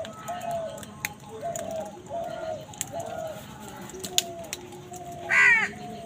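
House crows and other feeding birds calling: a run of short, repeated calls about every half second with a few sharp chirps, then one loud, harsh crow caw about five and a half seconds in.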